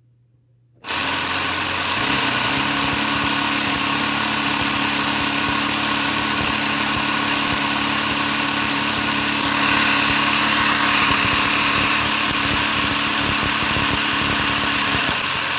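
Motorized LEGO engine model switched on about a second in: its electric motor spins the plastic crankshaft, 2x2 pistons and speed-up gears, giving a steady whir with a fast clatter of clicks.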